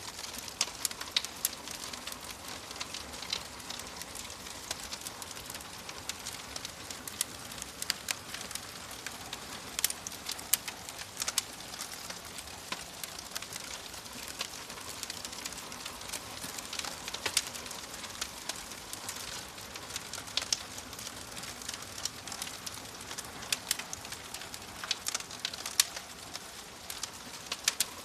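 Wood fire crackling in a fireplace: frequent irregular sharp pops and snaps over a steady soft hiss.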